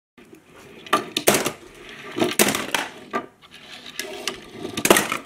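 Die-cast metal toy cars clinking and clattering as they are handled, set down on a tabletop and knocked against one another, in a string of sharp irregular knocks.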